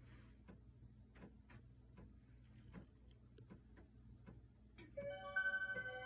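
Clocks ticking, light ticks coming about three times a second in an uneven rhythm. Near the end there is a sharp click, and a Seiko musical wall clock starts its hourly melody in clear, ringing bell tones.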